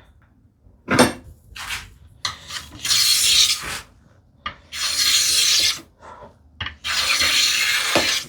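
No. 5 hand plane taking three long strokes along the edge of a wooden slat, shaving a chamfer on its corner, after a single knock of wood about a second in.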